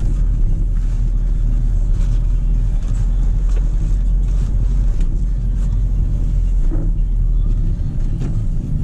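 Steady low rumble of a car's engine and tyres heard from inside the cabin while driving, with a few faint clicks and rattles.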